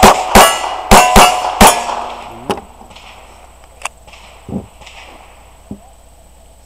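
A .22 LR Ruger 22/45 Lite pistol fired quickly, about five shots in under two seconds, each followed by the ring of a struck steel plate. After that come a few faint knocks.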